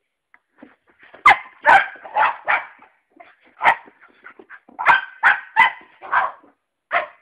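Cocker spaniel puppy barking: about ten sharp barks in bursts of two to four, starting about a second in.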